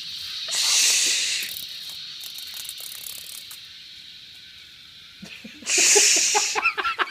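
Two one-second hisses from an aerosol insect spray, about half a second in and again near six seconds. Under them runs a steady high buzz of cicadas that slowly fades. Around the second hiss comes a flurry of short squeaky sounds.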